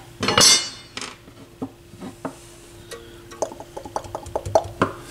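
Small metallic clicks and clinks of hands handling parts and wiring inside an opened stereo receiver chassis, with a brief rustling noise about half a second in. A faint steady hum sits underneath.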